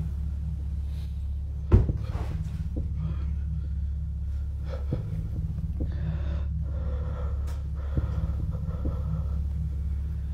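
A sharp knock about two seconds in, then a few fainter knocks, over a steady low hum, with a person's tense, audible breathing.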